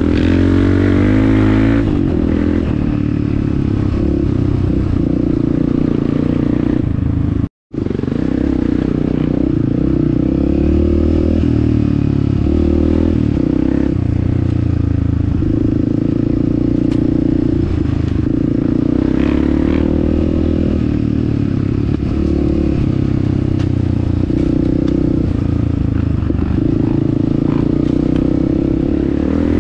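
Honda CRF 250F single-cylinder four-stroke dirt bike engine running under way, its pitch stepping up and down as the throttle and gears change. The sound cuts out completely for a moment about seven and a half seconds in.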